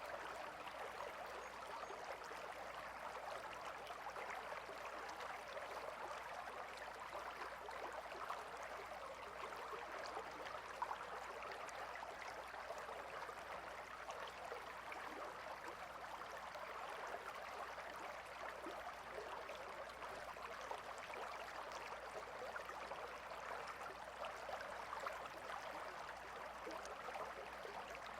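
Gentle river flowing: a steady babble of running water with fine splashing and trickling.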